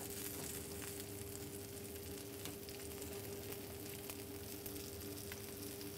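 Red mullet fillets and floured prawns frying gently in oil in a pan, a faint even sizzle with scattered small crackles over a steady hum.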